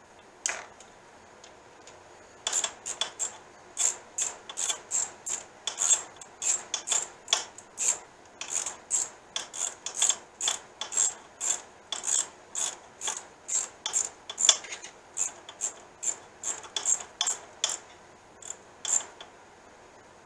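Socket ratchet wrench clicking in repeated back-and-forth strokes, about two to three a second, while a bolt is run in.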